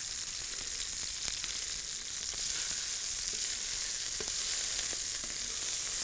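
Oil sizzling steadily in a frying pan as meatballs and potato rounds shallow-fry, with a few light clicks of a metal utensil against the pan as the potatoes are turned.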